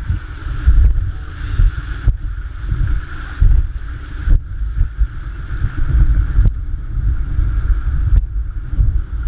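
Whitewater river rushing past a raft, with wind buffeting the microphone in a heavy low rumble. A few sharp knocks come about two seconds apart.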